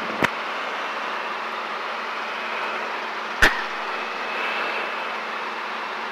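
Steady cabin noise of a Robinson R22 helicopter in forward flight, with two sharp clicks: one just after the start and a louder one past the middle.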